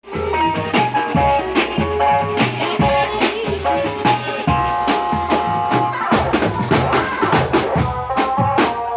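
Live band music: a drum kit plays a steady, driving beat under an electronic keyboard or organ melody.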